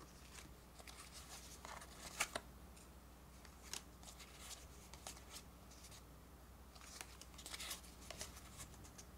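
Trading cards being handled and sorted in the hands: soft sliding and flicking of card stock against card stock, with a few sharper snaps about two seconds in and a cluster of them near the end.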